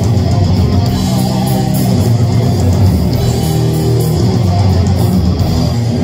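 Live heavy metal band playing loud: distorted electric guitars with bass guitar, the guitars carrying sustained riffing notes.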